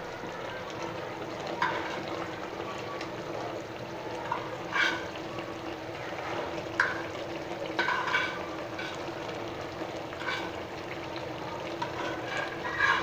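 Fish curry cooking in a pan: a steady sizzling, bubbling hiss, with a spatula scraping and knocking against the pan about seven times.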